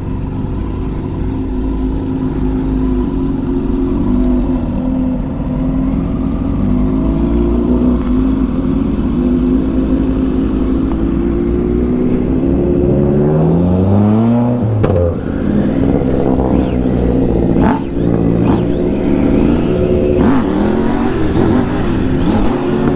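Engines of motorcycles and a car riding together, running loud and revving, with the pitch climbing steeply as they accelerate about halfway through. A few sharp pops come near the end.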